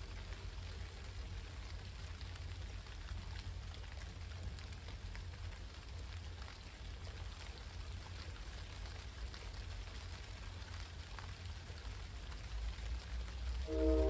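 Steady rain falling on wet ground and leaves, with a low rumble underneath. Near the end a diesel locomotive's horn starts sounding loudly: a chord of several steady tones.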